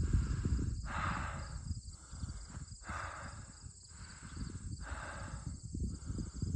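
Wind buffeting the microphone, a ragged low rumble throughout, with a soft hiss recurring about once a second.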